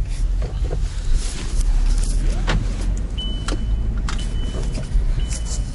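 Steady deep road and engine rumble inside a moving car, with rustling and clicks as the camera is handled against a bag or coat. From about three seconds in, a high steady beep sounds repeatedly, each beep about half a second long.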